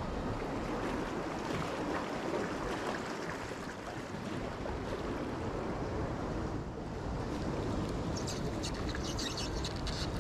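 Sea water surging and washing among concrete breakwater tetrapods, a steady rush. From about two seconds before the end, a run of short high ticks comes in as a spinning reel is cranked.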